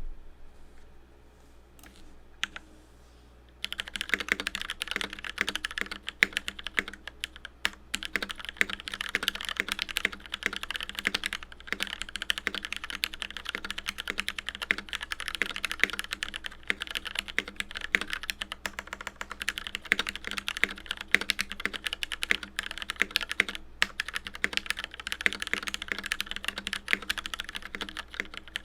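Fast, steady typing on a mechanical keyboard with linear switches. It starts about three and a half seconds in, after a couple of faint clicks.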